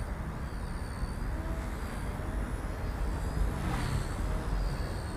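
Faint high whine of the XK K110S mini RC helicopter's brushless motor and rotor in flight, wavering up and down in pitch with the throttle, over a steady low rumble.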